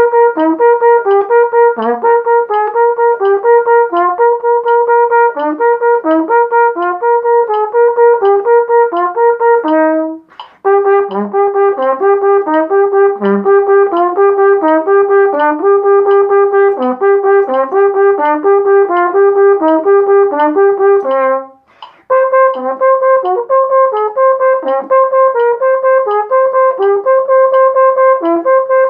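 Flugelhorn playing an exercise of quickly repeated notes, with lower moving notes slipped in between. It plays in three phrases, with short breaks about ten and twenty-two seconds in.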